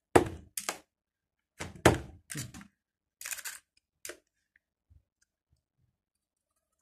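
A series of sharp knocks and clunks as hard objects are handled and set down, a magnetic work light and tools among them: about half a dozen in the first four seconds, then a couple of faint taps.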